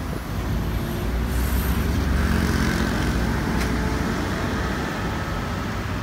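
Road traffic: a steady low rumble of cars and a lorry going by close, swelling about two seconds in as a vehicle passes.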